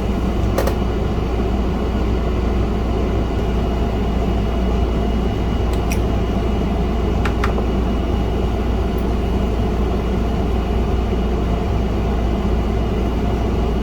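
Steady fan hum, like a room air conditioner or bench fan, with a few faint clicks of small parts being handled.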